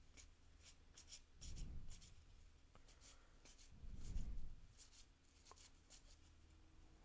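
1987 Topps baseball cards being flipped through by hand: repeated short, faint papery flicks and slides of thin cardboard, with two low muffled bumps of handling about one and a half and four seconds in.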